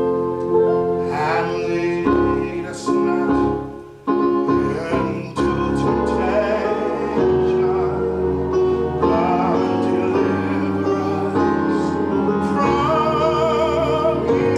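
A man singing solo with vibrato on held notes, accompanied by an electronic keyboard playing sustained chords.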